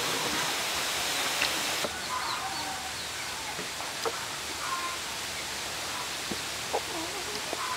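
A knife cutting green vegetable stalks on a wooden board: a few separate, irregular chops and knocks over a steady background hiss, with small birds chirping faintly.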